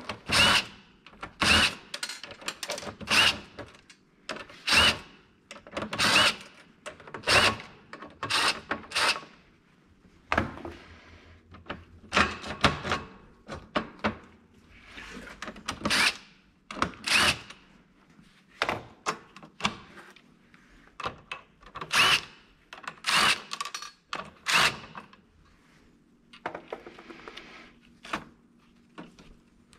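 Cordless DeWalt driver running in many short bursts, one every second or two, driving screws into an aluminium rail and gear-rack plate, with clunks of the metal parts being handled in between.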